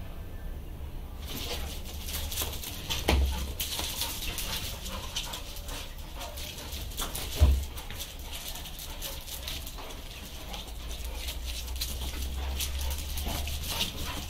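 Pit bull–type dogs scuffling in play on a tiled floor, claws clicking and scraping as they dash after a swung rag, with two heavy thumps about three and seven and a half seconds in and a few brief dog whines near the end.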